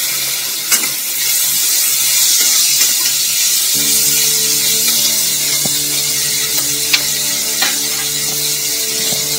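Chopped onions and green capsicum sizzling in hot oil in a metal kadhai, stirred with a flat metal spatula that clicks and scrapes against the pan a few times.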